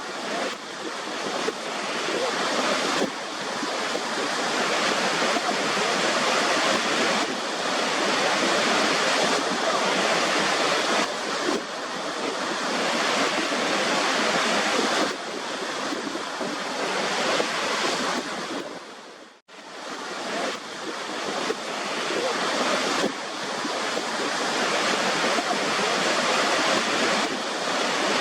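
Waterfall running: a steady rushing hiss of falling water. About two-thirds of the way through it drops briefly to silence and fades back in.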